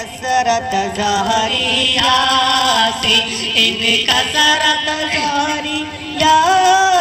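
A voice singing a melodic, chant-like line over music, with held notes that bend up and down.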